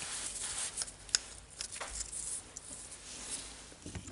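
Small parts of a cordless drill being handled and fitted: a few light clicks, the sharpest just after a second in, over soft rustling.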